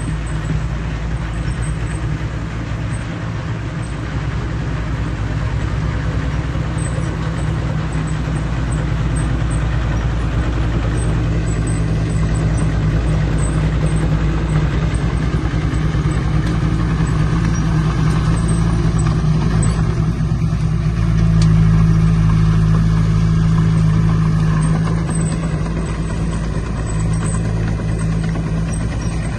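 Heavy diesel engine of earthmoving machinery running steadily with a low drone, growing louder about twenty seconds in and easing back a few seconds later.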